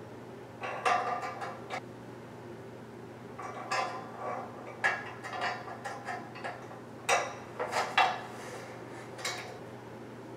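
Small metal bolts and a steel bed-frame rail clinking as the hardware is handled and fitted together by hand, in about five short clusters of light metallic clicks.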